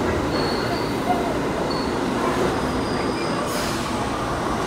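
R68 subway train running along the track with a steady rumble, and faint high-pitched wheel squeals coming and going a few times.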